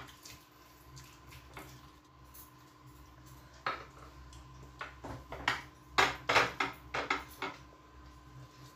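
Hands eating rice and chicken off glass plates: short clinks and scrapes of fingers and food against the plates, sparse at first and bunching into a run of sharper clatters between about five and seven and a half seconds in. A faint steady hum sits underneath.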